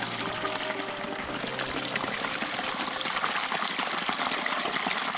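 A small creek trickling and splashing as it spills out of a wooden culvert and down over rocks in a little cascade, a steady rush of running water.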